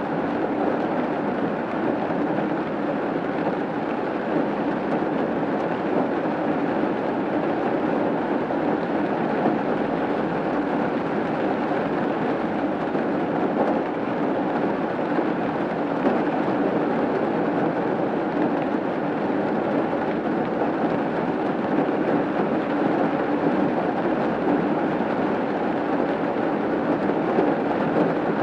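Steady rain falling on a roof: an even, unbroken rush of drops that holds the same level throughout.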